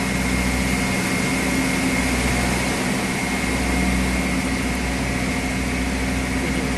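Boat engine running steadily while under way: a constant low hum with a thin, steady high whine over it.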